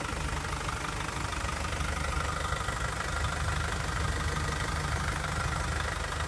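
Nissan Navara D22's 2.5-litre turbodiesel engine idling steadily, running smoothly with the usual diesel clatter.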